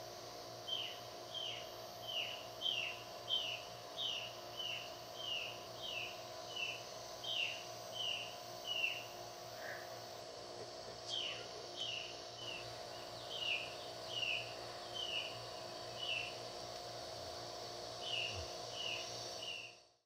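Rainforest ambience: a repeated short chirp that slides down in pitch, about one and a half calls a second with a couple of pauses, over a steady hum. It fades out at the end.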